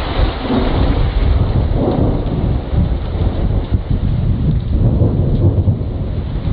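Thunder rumbling on without a break, over steady falling rain.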